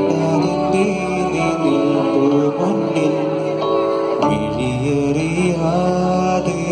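Live band music through PA speakers: a male singer with keyboard accompaniment, a sustained, winding melody over a bass line that shifts a little after four seconds in.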